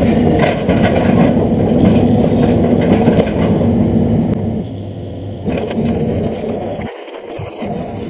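LiuGong excavator's diesel engine running under load as the boom and bucket work, easing off about halfway through.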